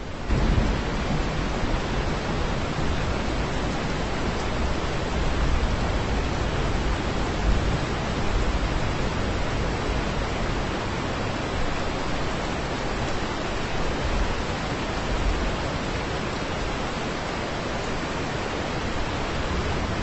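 Heavy rain pouring steadily, a dense even hiss with a low rumble beneath it.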